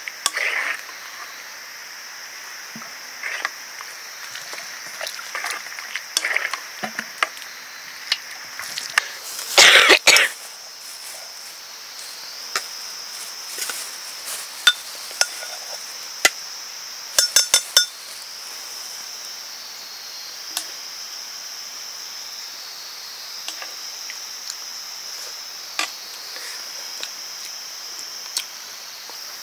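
Scattered clinks and knocks of cooking work, with one louder, longer noisy burst about ten seconds in and a quick run of clicks about eight seconds later, over a steady high-pitched drone.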